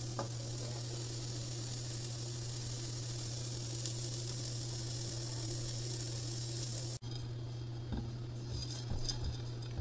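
Chopped onions and curry leaves frying in ghee in a wok: a steady, gentle sizzling hiss over a low hum. The sound drops out for an instant about seven seconds in, then a few light taps of a spatula stirring in the pan follow.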